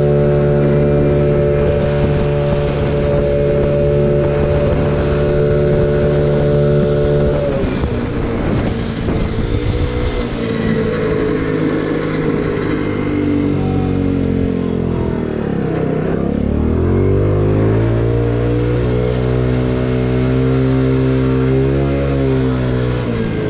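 Icebear Maddog scooter's 50cc GY6 four-stroke single running at a steady high pitch while cruising. About a third of the way in it eases off, and the pitch then falls and climbs again as the scooter slows and pulls away. It drops once more near the end.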